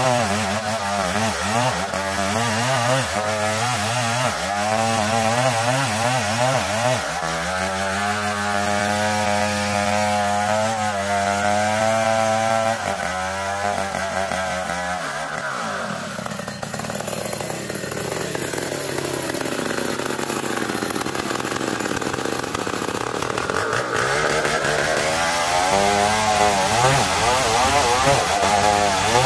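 Chainsaw ripping lengthwise through a dense-grained ulin (Bornean ironwood) log, the engine running hard under load. Its note drops about halfway through and rises again near the end.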